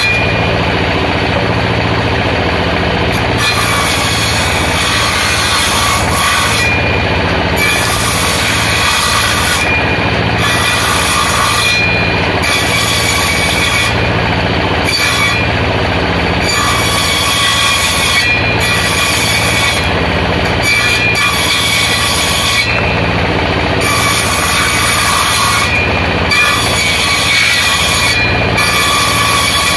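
Table-mounted circular saw ripping waru wood into thin slats. The blade runs steadily over a low motor hum, and the high cutting noise breaks off briefly every few seconds between boards.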